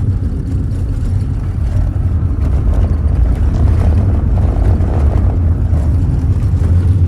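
Cabin noise of a 1992 Holden VP Commodore driving on a gravel dirt road: a steady low engine drone with the rumble of tyres on gravel.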